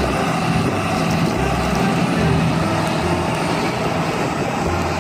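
Large farm tractor's diesel engine running steadily under load while the tractor drives a rear-mounted mulcher over rough ground: a dense, continuous mechanical noise.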